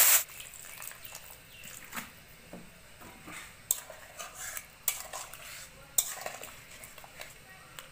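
A steel spatula stirs a watery potato curry in a metal kadai, scraping and knocking against the pan with a few sharp clinks. It opens with the brief tail of a loud hiss as water is poured into the hot pan, which cuts off at once.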